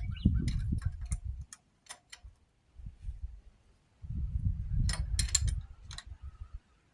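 Wrench tightening a jam nut on a quick-hitch mounting bolt: two spells of rapid metallic clicking over low handling noise, the first in the opening second and a half and the second from about four seconds in, with a few single clicks between.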